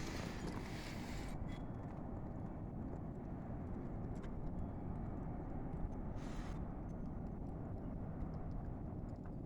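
Strong wind in a heavy snow squall: a steady low rumble, with a higher hiss that fades out about a second and a half in and a brief hissing gust about six seconds in.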